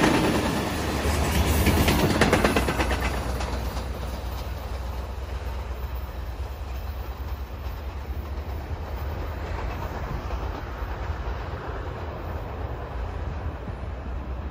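Passenger train's coaches passing close by, their wheels clacking over the rail joints in the first few seconds, then the train's rumble fading steadily as it draws away.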